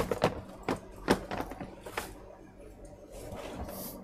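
Small tools and parts handled on a repair bench: a quick run of sharp clicks and light knocks in the first two seconds, then a soft scraping hiss near the end.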